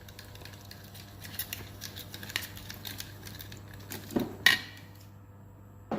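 A spoon stirring sauce in a bowl, making rapid light clicks against the bowl, then two louder knocks about four seconds in before it goes quiet.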